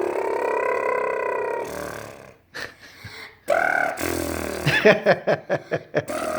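A person making silly vocal noises: a long held, burp-like voiced drone, a short higher squeal about halfway, then a quick run of short pulses, about six a second, near the end.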